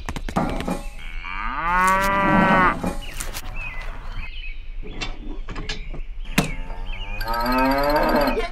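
Cow mooing twice, two long drawn-out moos about five seconds apart, with a few sharp clicks in the gap between them.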